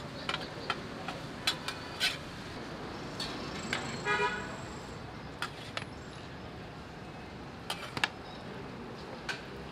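Metal ladle knocking and scraping in a large aluminium pot as steaming rice is stirred, in scattered sharp clicks over a steady street background. A short car horn toot sounds about four seconds in.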